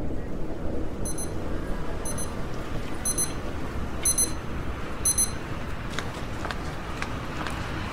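Electronic alarm beeping: five short, high-pitched double beeps about a second apart, which then stop.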